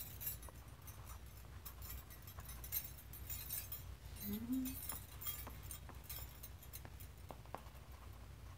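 Dry scratchy rubbing of a hand and oil pastel over drawing paper, coming and going in irregular strokes over a steady low room hum. A short, low, rising murmur comes about halfway through, and a few light clicks follow near the end.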